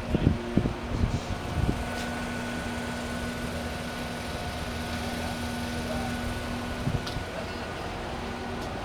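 Diesel engine of heavy construction machinery running steadily, with a steady hum that comes in about a second in and drops out near the end. A few low thumps sound in the first two seconds.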